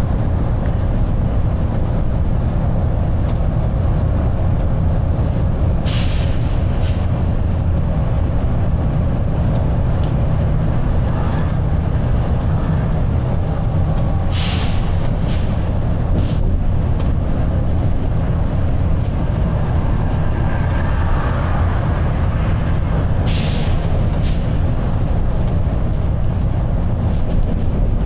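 Volvo B9TL double-decker bus heard from on board: its diesel engine and the road make a steady, loud low noise while the bus runs at speed. Three or four short hisses of air from the bus's air system break in, about six seconds in, twice near the middle, and again near the end.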